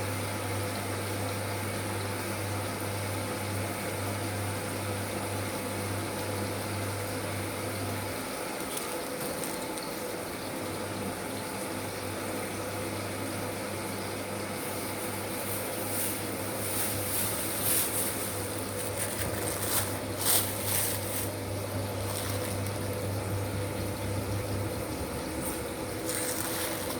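Water running and splashing in a kitchen sink as vegetables are washed, over a steady low hum. A few sharp knocks and clatters come about two-thirds of the way through.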